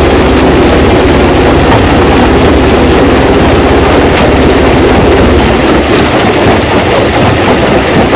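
Stone crushing machine running loudly, with a dense clatter of rock being crushed over a steady engine drone that weakens about six seconds in.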